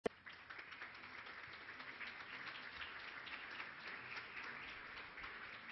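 Audience applauding: a fairly faint, dense patter of many hands clapping.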